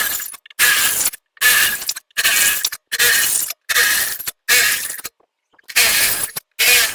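Drill with a 1/2 inch bit cutting into steel in short bursts, about one a second, each stopping sharply.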